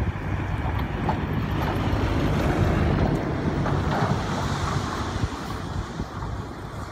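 Soil and rock sliding out of a dump truck's raised tipper bed, a rushing noise over the truck's running engine. The rush swells a couple of seconds in and eases toward the end.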